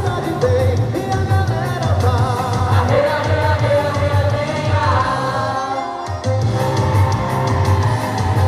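Quadrilha junina song playing loud, with a sung melody over a pulsing bass beat; the bass drops out for a moment about six seconds in, then the beat comes back.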